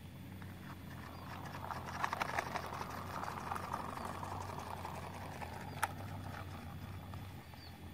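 Handling noise of a plastic toy helicopter: rustling with a cluster of light clicks about two seconds in and one sharp click near six seconds, over a steady low hum.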